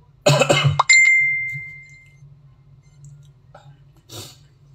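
A man coughs sharply, then a single clink rings out with a clear bright tone that fades away over about a second.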